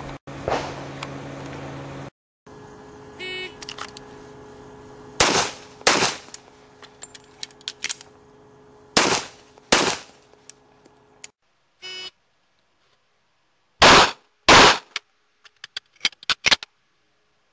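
A shot-timer beep, then pistol shots in pairs: two shots about a second apart, a few seconds of small reload clicks, then two more. The pairs come again, louder and sharper, after a break in the sound near the end.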